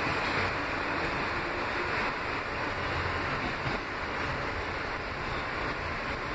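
Steady rushing wheel-on-rail and running noise heard inside a Kawasaki R160B subway car as it travels through the tunnel. A little quieter in the second half.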